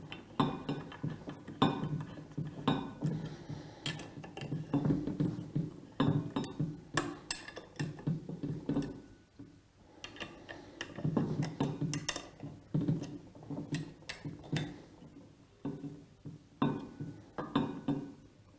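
Metal pump parts and hand tools clinking and knocking against each other in a long irregular run of sharp strikes, with short pauses.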